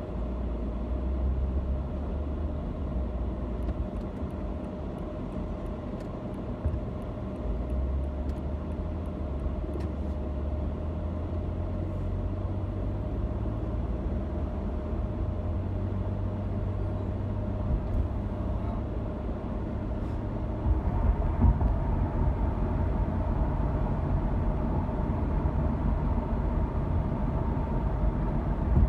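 A car being driven, heard from inside the cabin: steady low road and engine rumble that turns rougher and a little louder about two-thirds of the way through.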